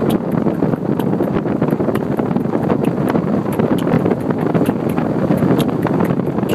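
Wind rushing over the microphone in the open bed of a moving pickup truck, a loud steady roar of air with the truck's road noise beneath it and scattered faint ticks throughout.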